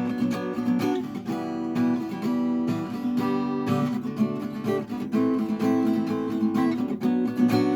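Acoustic guitar strumming chords in a steady, even rhythm, the instrumental introduction before the vocals come in.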